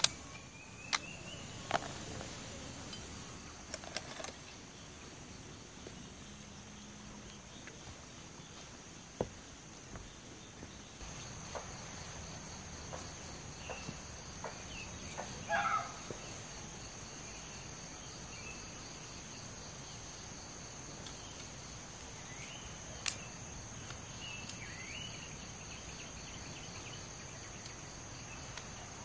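Insects droning in a steady high-pitched whine, with a second, stronger high tone joining about a third of the way in. Short chirps and a few sharp knocks stand out over it now and then.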